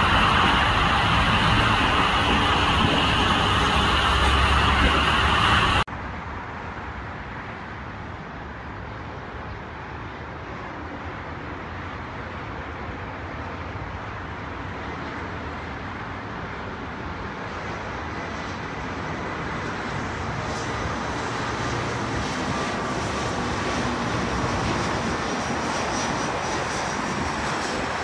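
Jet engines of a twin-engine widebody airliner, loud as it lands, cutting off abruptly about six seconds in. Then the quieter, steady jet noise of another airliner on approach, slowly growing louder, with road traffic underneath.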